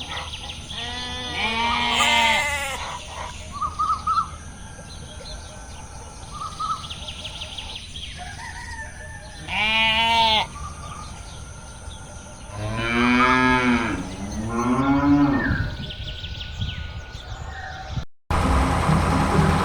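Cows mooing, several long drawn-out calls with short chirps in between. Near the end the sound cuts off abruptly and a different steady noise starts.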